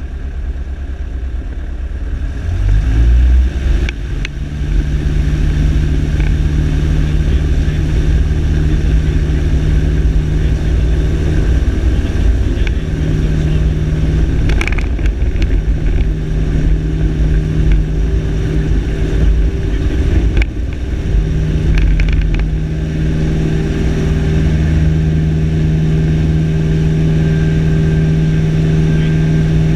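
Single-engine light aircraft's piston engine and propeller heard from inside the cockpit. It rises in pitch to full power over the first few seconds, then runs steadily through the takeoff roll and climb-out.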